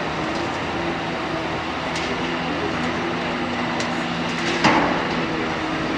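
Cat 325D excavator's diesel engine running steadily as the loaded arm swings, with a sudden loud crash about three-quarters of the way in as the bucket dumps a load of earth into the tipper truck's steel bed.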